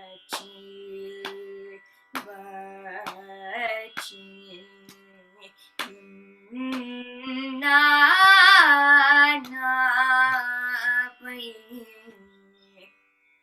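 A female voice singing held Carnatic notes along with a shruti box drone, heard over a video call. The voice moves higher and is loudest about eight seconds in, with wavering, ornamented pitch, and a few short clicks break in during the first seconds.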